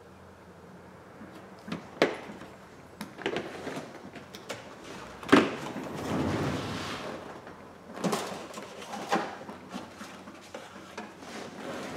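Workbench handling noises: a small screwdriver and a phone set down on a rubber mat, several light knocks, the sharpest about five seconds in, with a stretch of rustling between.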